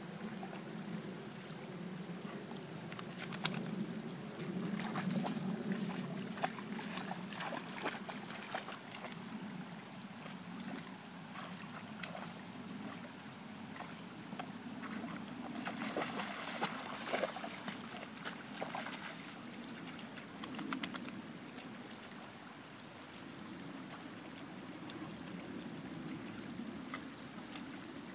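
Shallow creek water running and trickling, with occasional short splashes as a Weimaraner wades through it.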